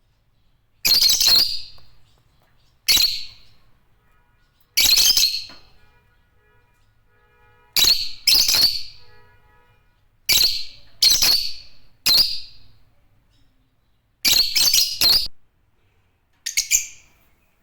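Agapornis lovebirds giving loud, shrill calls: short sharp cries every second or two, some in quick runs of two or three.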